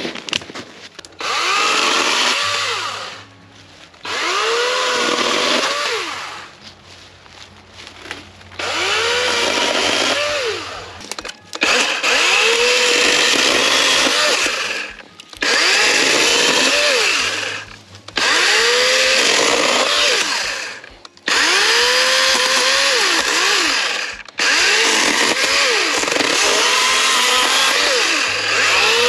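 Greenworks Pro 80V cordless electric chainsaw with an 18-inch bar cutting off branches in about eight short cuts. Each cut starts with the motor's whine spinning up and ends with it winding down, and the saw goes quiet between cuts.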